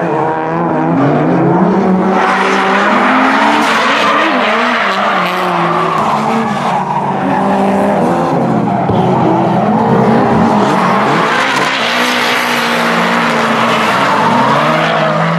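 Drift cars sliding: engines revving hard, their pitch rising and falling, with tyres squealing as they slide.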